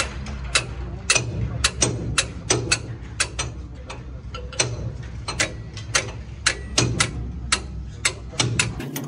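Sharp metal clicks and clinks, roughly two a second, as a steel spanner works a nut on a truck leaf-spring bolt, over a low hum that stops shortly before the end.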